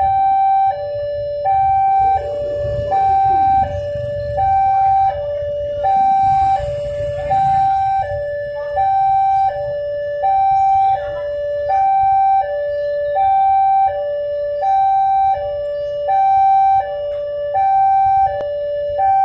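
Railway level crossing warning alarm sounding its electronic two-tone signal, alternating high and low tones about every 0.7 s without a break, which signals that a train is approaching and the crossing is closed. Engines of waiting motorcycles and vehicles rumble low underneath.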